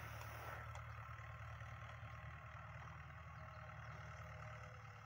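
Fiat 640 tractor's four-cylinder diesel running steadily while it pulls a rotavator, heard as a faint, even low drone.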